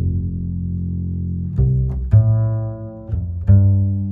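Background music of low, sustained bass notes, a new note starting sharply every second or so.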